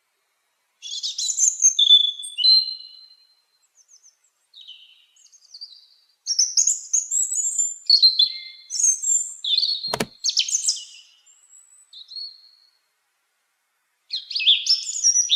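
Robin singing: high, thin warbling phrases in bursts of a second or several, separated by short pauses. A sharp click cuts in about ten seconds in.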